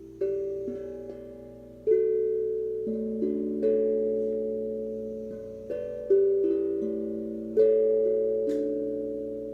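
Steel tongue drum played slowly: single notes struck every second or so, each ringing on and fading slowly so that they overlap.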